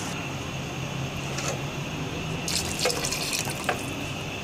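Onion-tomato paste with mutton sizzling and bubbling in hot oil in a steel pot, a steady hiss, with a few short scrapes of a wooden spoon about two and a half to three and a half seconds in.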